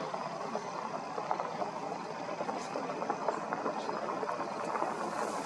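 Steady rushing background noise with scattered faint ticks.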